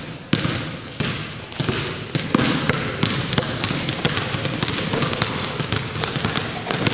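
Several basketballs dribbled at once on a gym floor: a quick, irregular run of bounces.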